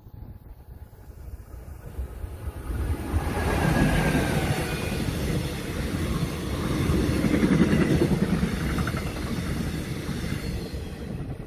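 Korail Mugunghwa-ho passenger train passing close by: the rumble of its coaches' wheels on the rails swells about three seconds in and stays loud as the cars go past.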